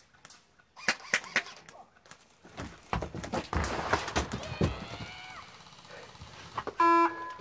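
Airsoft player running in and dropping to the ground, with knocks and scuffs of boots and gear, then a short loud beep near the end.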